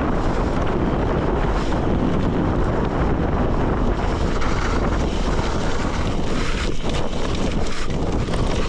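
Steady wind rushing over a handlebar-mounted camera's microphone as a gravel bicycle rolls along a dirt forest road, with the low rumble of the tyres on the rough surface.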